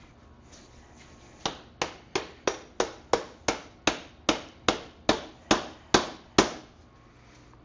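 A small plastic-faced rubber mallet knocking the rear axle out of a 1974 MX100 dirt bike's rear hub: about fourteen quick, even blows at roughly three a second, getting louder toward the end.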